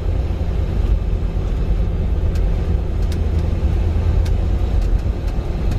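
Semi truck's diesel engine running, a steady low rumble heard from inside the cab, with a few faint ticks.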